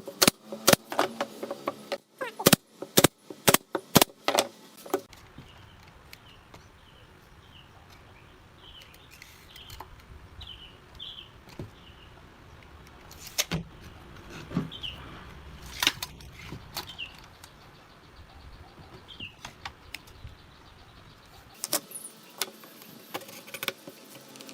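A run of sharp knocks, about two a second, for the first few seconds, then a low steady hum with scattered light clicks and faint short high chirps; the knocks and clicks return near the end.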